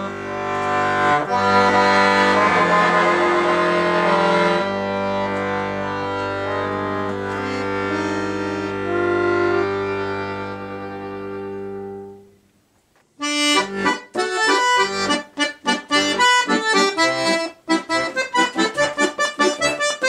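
Chromatic button accordion (bayan) playing: held chords over a sustained bass for about twelve seconds, ending on a long chord that fades away. After a short pause a fast passage of short, detached notes and chords begins.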